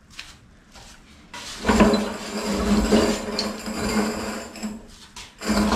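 Engine hoist loaded with a cast-iron Chevy 283 V8 block being rolled across a concrete floor: its casters rumble with a steady hum and the metal clinks now and then. It starts about a second and a half in, stops briefly near the end, then starts again.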